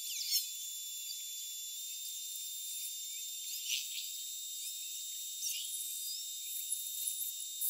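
Steady faint high-pitched whine over a thin hiss, with a few brief soft crackles.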